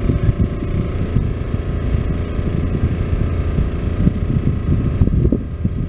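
Steady low rumble of a moving park steam train heard from aboard, with wind buffeting the microphone.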